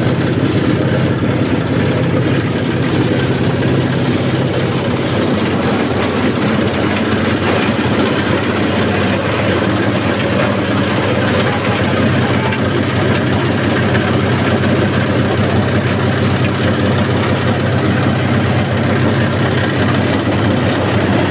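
Engine-driven corn husk chopper running steadily at speed, shredding dry corn husks as they are fed into the hopper: a constant low engine hum under a dense rushing chopping noise.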